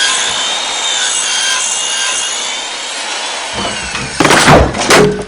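Steady rasping, sawing-like grinding, then several loud knocks from about four seconds in.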